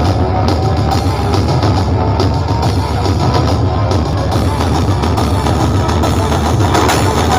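Loud music with strong bass played through a PA sound system being tested.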